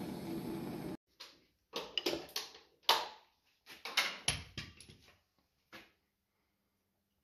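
Handheld butane torch flame hissing steadily, cut off abruptly about a second in. Then a run of separate sharp metal knocks and clanks as the two-jaw puller and the Model T transmission drum and gears are handled, the loudest near the middle.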